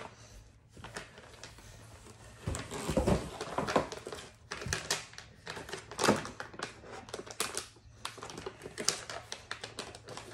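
Snack packaging being handled: irregular rustling, crinkling and light clicks of small cardboard snack boxes and plastic-wrapped packets being opened and sorted.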